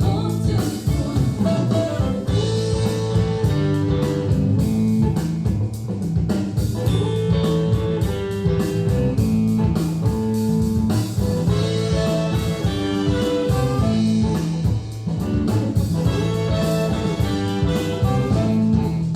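Music with guitar and drum kit played back through Monitor Audio Monitor 3 three-way floorstanding speakers, with a steady beat and sustained bass notes.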